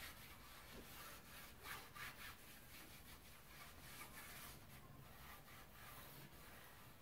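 Faint, repeated strokes of a cloth pad rubbing wood stain onto a wooden cabinet door.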